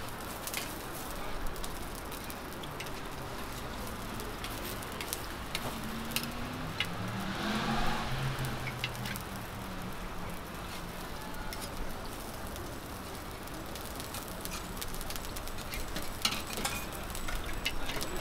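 Susu-bukkumi, millet pancakes, frying in oil on a flat steel griddle: a steady sizzle with scattered sharp clicks and scrapes of a metal spatula on the griddle.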